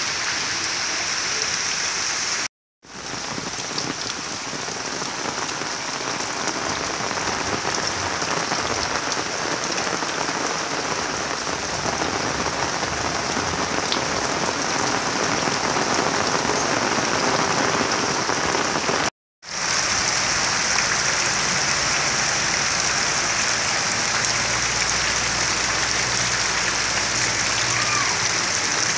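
Heavy rain falling steadily onto flooded, muddy ground and standing water, an even hiss of drops. It breaks off for a moment twice.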